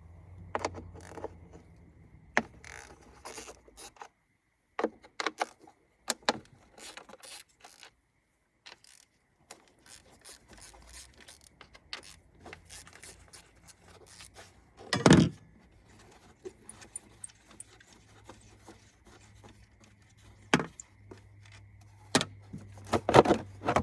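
Hand work on a 1NZ-FE engine's ignition coils: a run of sharp clicks, rattles and scrapes as the coils and their brittle plastic connectors are handled and pulled. There is one loud thump about fifteen seconds in and a cluster of knocks near the end.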